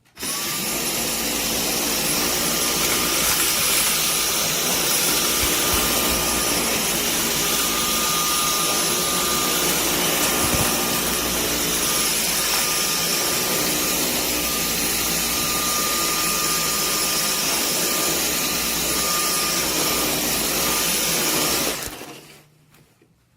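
Dyson vacuum cleaner running on normal power: it switches on at once, runs steadily with a high whine, and shuts off about a second and a half before the end.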